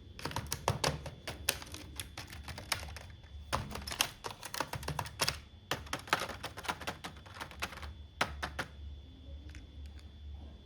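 Quick, irregular clicks and taps of hard plastic toy doctor-set pieces and packaging being handled, dense for most of the time and thinning out near the end, over a faint low hum.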